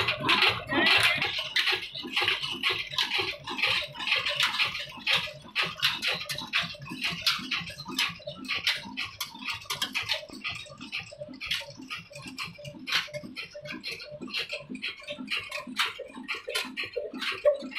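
Old Ruston Hornsby stationary diesel engine running with a steady, even beat and a rhythmic mechanical clatter.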